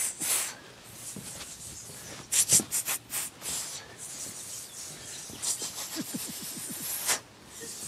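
A person hissing like a snake: a string of short, breathy "sss" hisses a second or two apart.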